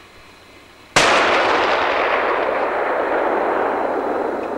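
A single hunting rifle shot about a second in: a sharp crack followed by a long echo that slowly fades.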